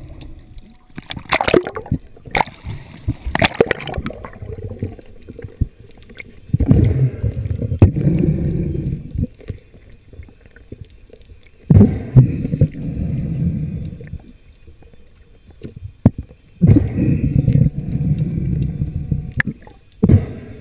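Seawater splashing and gurgling around a camera at and just below the surface: a few sharp splashes in the first few seconds, then three longer bursts of rushing, sloshing water.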